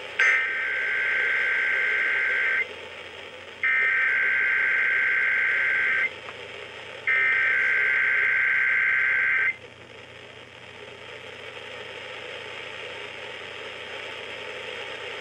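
Emergency Alert System SAME header, heard over an FM radio broadcast: three identical bursts of warbling, screeching digital data tones, each about two and a half seconds long with about a second between them. These are the coded header that opens a required monthly test. Low, steady radio hiss follows for the last few seconds.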